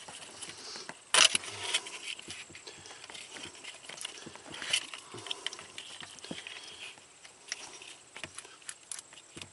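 Crinkling and rustling of a truck engine's wiring harness and its ribbed plastic loom being pulled open by hand, with scattered small clicks and a louder crackle about a second in.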